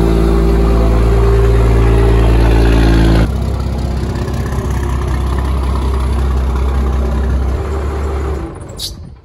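Second-generation Dodge Ram 2500 diesel pickup's engine idling close by, a loud, steady drone with a clear pitch. About three seconds in it changes abruptly to a quieter, lower rumble as the truck creeps forward, and this fades out near the end.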